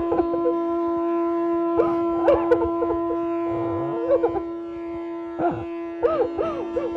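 Background music: a steady held drone with short, wavering, wailing notes that glide up and down over it every second or two.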